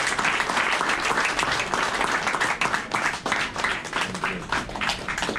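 A small audience applauding, the clapping thinning out and getting quieter toward the end.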